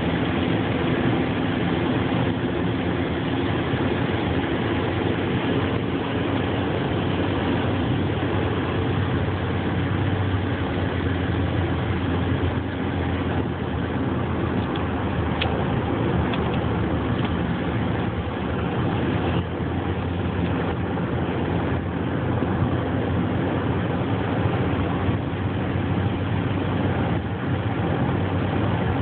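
Steady road and engine noise inside a car's cabin while driving at freeway speed: an even rumble of tyres and engine with a low hum.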